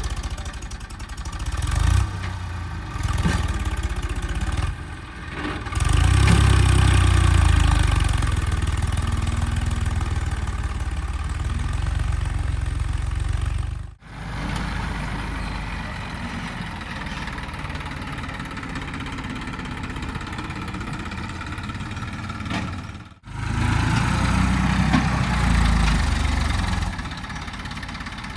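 Diesel engine of a JCB 3DX backhoe loader working while it loads soil, its revs rising and falling under load. The sound breaks off abruptly twice, where the footage is cut.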